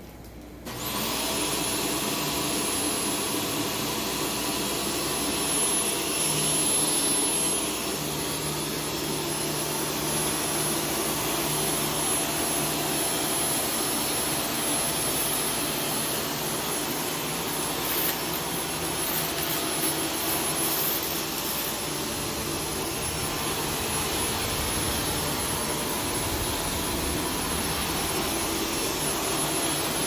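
Shark Stratos DuoClean PowerFins upright vacuum switched on about a second in: the motor spins up with a rising whine, then runs steadily with a high whistle over the suction noise. A patch of crackling past the middle comes as it picks up shredded paper from the carpet.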